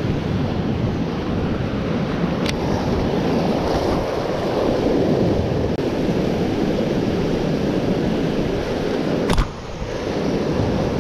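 Surf breaking and washing against jetty rocks as a steady rushing noise, mixed with wind buffeting the microphone. A sharp click sounds about nine seconds in.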